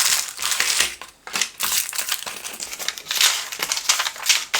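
Packaging being opened by hand: crinkling and rustling of the box's wrapping in irregular bursts, with a brief lull about a second in.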